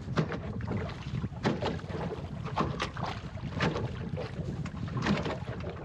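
Wind buffeting the microphone in a steady low rumble, with choppy water slapping irregularly against the hull of a small plywood sailing skiff, about once or twice a second.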